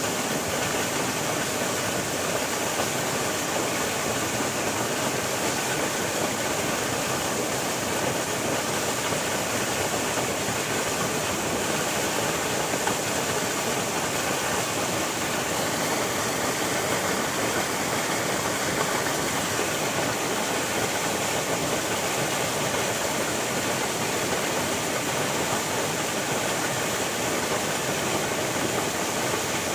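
River water flowing and rushing, a steady, even noise.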